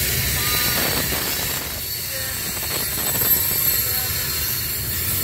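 Loaded coal hopper cars rolling past on the rails: a steady rumble and rattle of steel wheels over the track, with a few brief pitched tones now and then.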